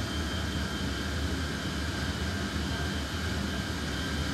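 C-17 transport aircraft's four turbofan jet engines running steadily, as heard inside the cargo hold: an even rushing noise over a low hum, with a faint steady high whine.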